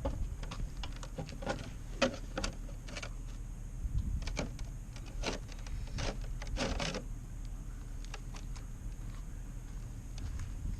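Engine oil dripping from the drain hole into a catch container, short irregular plops about one or two a second that thin out after about seven seconds, over a low steady rumble.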